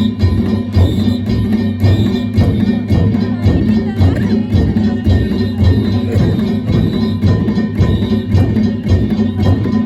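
Danjiri festival music (narimono): a big taiko drum, smaller drums and clanging hand-held bells beaten in a fast, steady rhythm.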